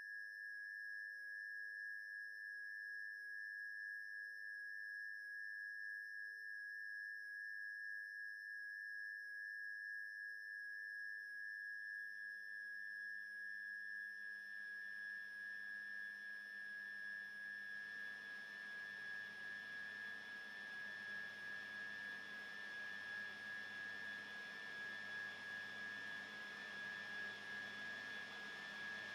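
A steady, high electronic sine tone held throughout, with fainter steady tones above it. From about twelve seconds in, a hiss and a low hum swell up beneath it, the hum pulsing about every two seconds.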